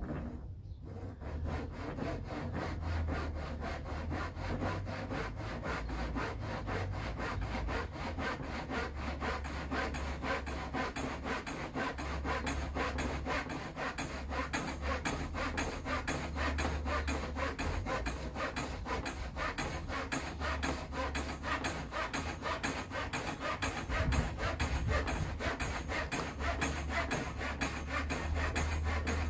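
Hand saw cutting through wood with rapid, even back-and-forth strokes.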